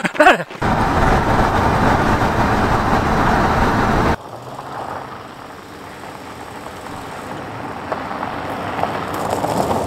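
Vehicle engine noise: a loud, rough running for about four seconds that cuts off abruptly, then a quieter steady engine hum that slowly grows louder.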